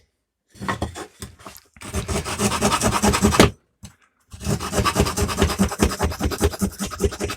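Small folding saw blade of a WorkPro multi-tool sawing with quick back-and-forth strokes, in two bouts with a short pause about four seconds in.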